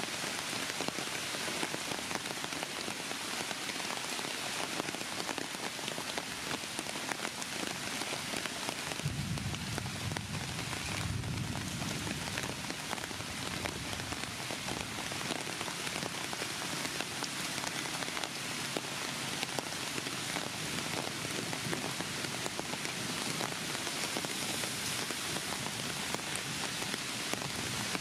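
Steady rain falling on the ground and leaves, an even hiss. A low rumble joins it for a few seconds around the middle.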